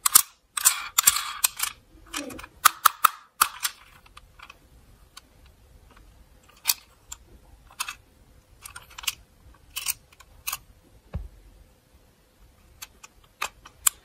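Hard plastic toy police car handled and turned over in the hands, giving irregular clicks and knocks of plastic, busy for the first few seconds and then only scattered.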